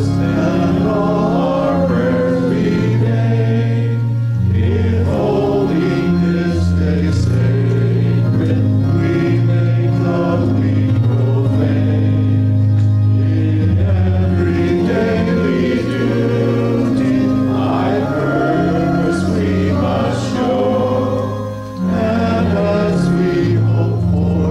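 Congregation singing a hymn together over instrumental accompaniment holding steady chords that change every second or two. A brief pause between phrases comes about 22 seconds in.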